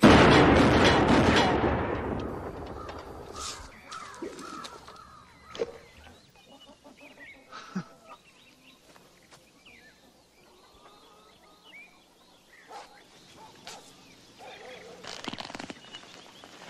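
Revolver fired at the start, its report echoing and dying away over about three seconds, followed by only faint scattered sounds.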